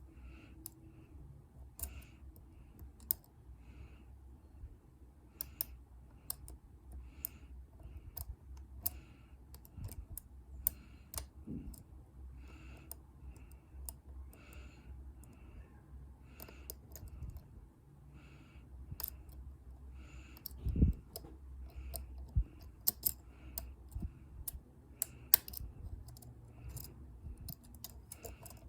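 Lock pick working the pins of a dimple-key Euro profile cylinder: irregular light metallic clicks and ticks, with a duller knock about two-thirds of the way through.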